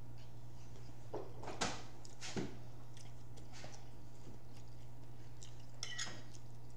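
Close eating sounds: chewing with a few short wet smacks and clicks, the loudest about one and a half and two and a half seconds in, over a steady low hum.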